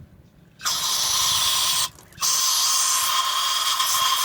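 Aerosol can spraying through a straw nozzle, two hissing bursts, the second longer, blasting dirt out of a hole in a brake part.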